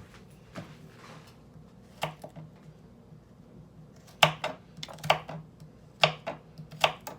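Knife chopping garlic on a cutting board: a few scattered knocks, then steady chops about once or twice a second from about four seconds in.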